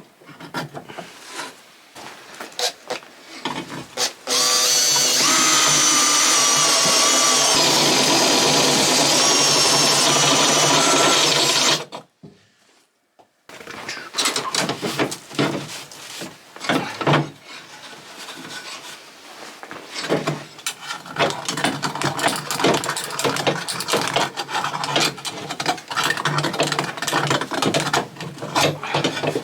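Power drill boring a hole through the small engine's casing for the coil cable, a steady whir for about eight seconds that stops suddenly. After a brief pause come irregular clicks and scraping as the work goes on.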